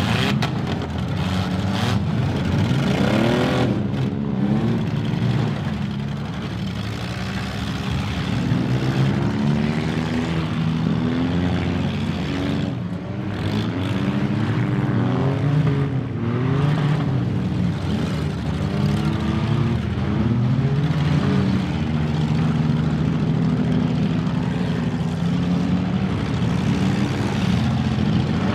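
Several demolition derby cars' engines running and revving at once, their pitches rising and falling as they accelerate and back off, with a few knocks of cars colliding.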